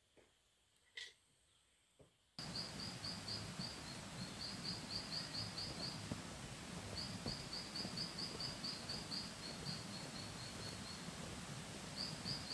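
About two seconds of near silence with one short chirp, then a sudden cut to a steady rush of a forest stream, overlaid with repeated runs of quick, high chirps.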